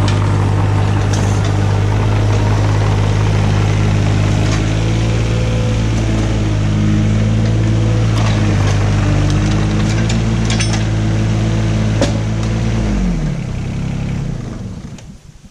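Komatsu PC15 mini excavator's diesel engine running steadily with a few sharp clicks over it, then shut off near the end, its pitch dropping as it winds down and dies away.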